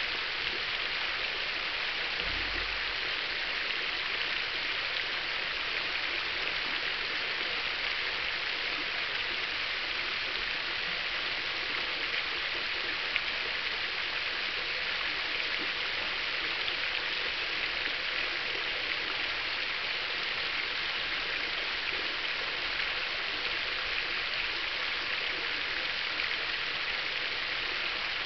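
Garden fountain splashing steadily into its basin: a ring of arching jets and a central cascade nozzle falling as a dense, even hiss of water.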